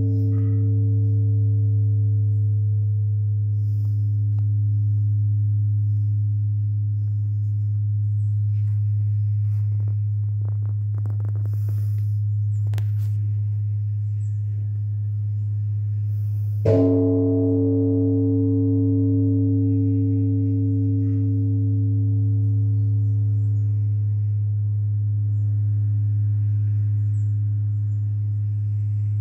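Large Korean Buddhist temple bronze bell (beomjong), struck once with a wooden log about two-thirds of the way in, rung to announce the time of the Buddhist service. Its deep hum rings on steadily and swells and ebbs slowly, while the higher ringing tones fade after each strike.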